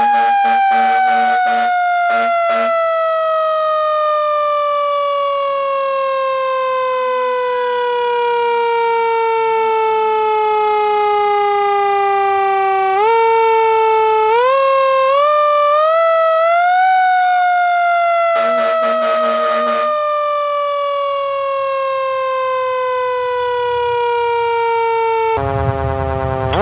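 A siren winding down slowly in one long falling wail, pushed back up in several steps, then winding down again. Rapid short air horn blasts sound at the start, and one air horn blast of about a second and a half comes about two-thirds through. A louder, deeper blast comes near the end as the wail's pitch drops sharply.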